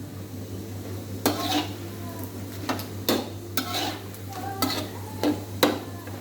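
A utensil scraping and knocking against a pan as food is stirred while it cooks, in about eight uneven strokes, over a steady low hum.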